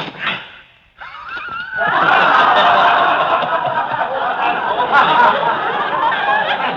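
A crowd laughing together. It starts after a short pause about a second in, swells over the next second, then holds steady and loud.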